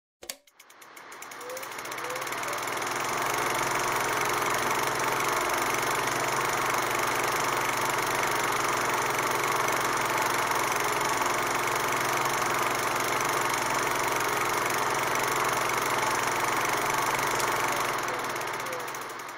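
Film projector running: a steady mechanical whir with a fast clatter, fading in over the first few seconds and fading out near the end.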